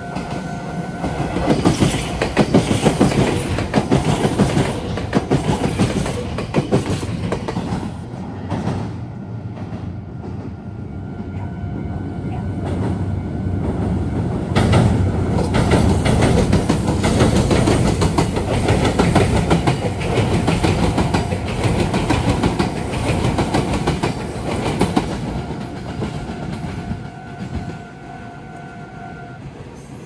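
Meitetsu electric trains passing close by, wheels clattering over the junction's points and rail joints. The noise swells, eases about ten seconds in, and swells again. A level-crossing warning bell rings steadily underneath and stands out as the trains fade near the end.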